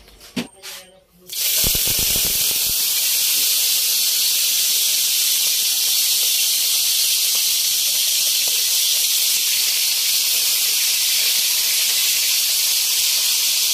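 Marinated milkfish (bangus) pieces frying in hot oil in a pan: a few light knocks, then a sudden loud, steady sizzle starts about a second and a half in as the fish hits the oil, and keeps going.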